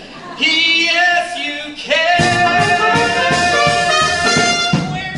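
Show-tune duet sung live on stage with accompaniment. A lower sung note comes first, then from about two seconds in a high note is held steadily for about three seconds.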